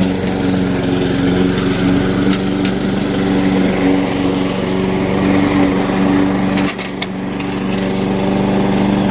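Weed Eater walk-behind lawn mower's small engine running steadily, with a brief dip in level about seven seconds in.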